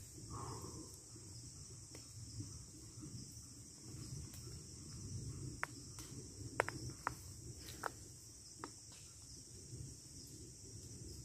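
Steady high-pitched insect chorus, with low rustling and handling noise and a handful of sharp clicks and snaps in the second half.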